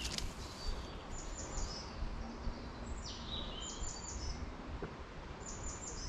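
A songbird singing four short, high phrases of quick repeated notes, some falling in pitch. Beneath them runs the steady low rustle of footsteps on a path of dry fallen leaves.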